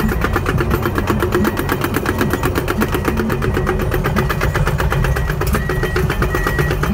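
Komatsu PC210LCi-10 excavator's six-cylinder diesel engine running under travel load, heard from inside the cab, with the rapid, even clatter of its steel tracks as the machine drives along. A faint beep repeats near the end.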